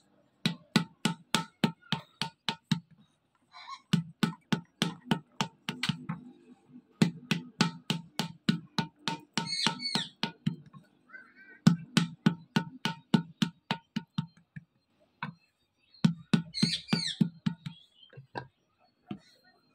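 A wooden paddle beating the wall of a large unfired clay pot to shape and thin it: low, even thuds about four a second, in runs of a few seconds with short pauses. A bird chirps a few times.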